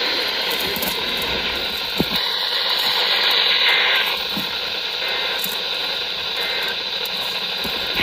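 Steady hiss of static from a handheld weather alert radio with no broadcast audio coming through, with a few faint knocks from the radio being handled.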